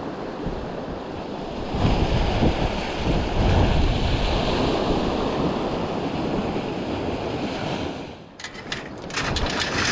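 Surf washing up the beach with wind buffeting the microphone; the wash of the waves swells about two seconds in. Near the end comes a quick run of sharp crackles and knocks.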